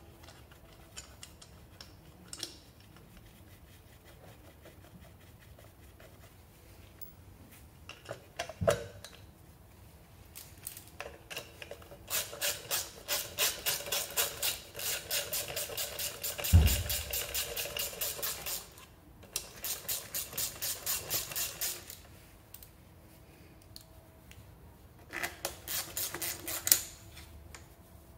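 Ratchet wrench clicking rapidly, about six clicks a second, in three runs as it works the exhaust nuts of a scooter engine. A dull metal knock comes about a third of the way in, and a louder knock during the first run.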